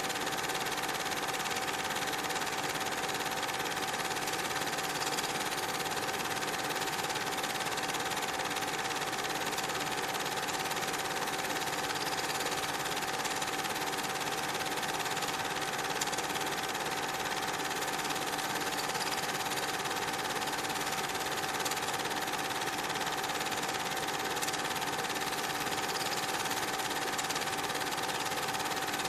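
Cine film projector running: a steady mechanical whirr with a constant hum that does not change.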